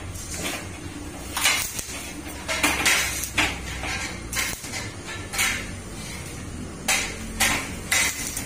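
Steel square tubing clanking and clinking as pieces of a welded bed frame are handled and set on a metal-framed work table: about nine irregular ringing knocks.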